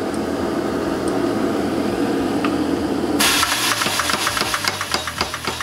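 Power hammer running with a steady mechanical drone and hiss. A little past halfway its ram begins striking hot steel on the dies in rapid, even blows, several a second.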